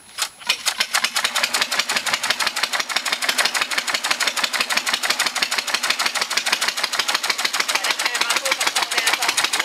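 Old single-cylinder engine with a flywheel starting up and then running steadily, its firing strokes coming as a rapid, even beat.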